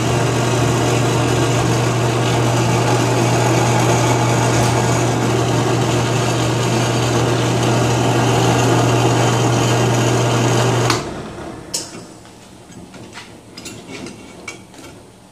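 Drill press motor running with a steady hum while a small bit drills through a short length of 1/2-inch PVC pipe held in a drill-press vise. The motor cuts off about eleven seconds in, followed by a few light clicks and knocks as the pipe is handled in the vise.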